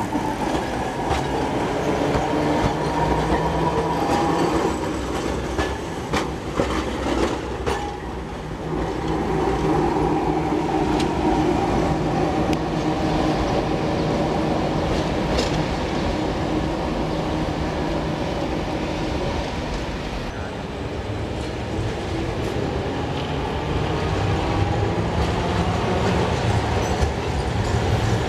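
Alexandria Ramleh-line trams running past on street track: a steady rumble of the cars and their wheels on the rails, with some clacking over rail joints.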